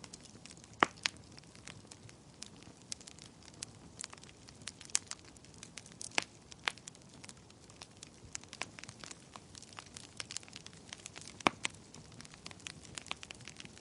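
Wood fire burning in a fireplace: irregular sharp crackles and pops over a soft hiss, with a few louder pops scattered through.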